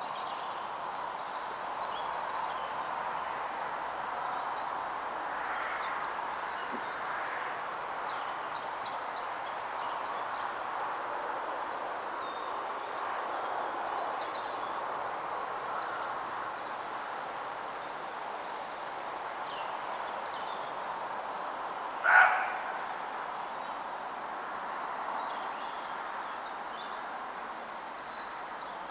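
A roe deer barks once, a single short bark about 22 seconds in, over a steady background hiss of the woods. A roe deer's bark is an alarm call, given when it senses danger.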